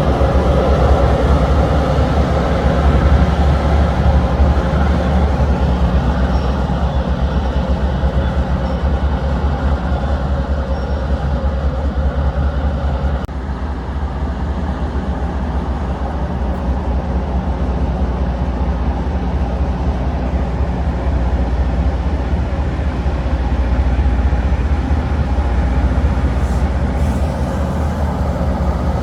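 Loram rail grinder working along the track: a steady, loud rumble of its engines and grinding stones on the rails, with a brief dip a little under halfway through.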